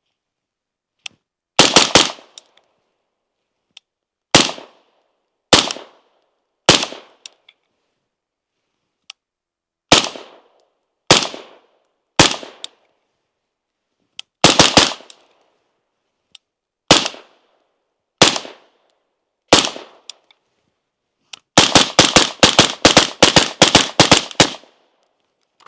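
Suppressed gunfire from an LMT 12.5-inch SPECWAR mid-gas AR rifle fitted with an Irregular Defense Hesychia SIXK suppressor, heard from a chest-mounted mic on the shooter. Single shots and quick pairs come about a second apart, then a rapid string of about a dozen shots near the end.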